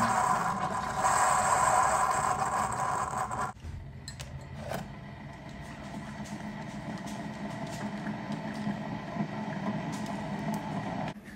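Single-serve pod coffee maker brewing, a steady pump and hiss that cuts off abruptly about three and a half seconds in as the brew cycle ends. After that it is quieter, with a few faint clicks as the mug is handled at the machine.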